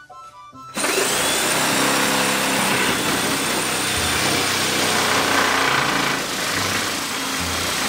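A power tool whirs up with a short rising whine about a second in, then runs steadily and loudly.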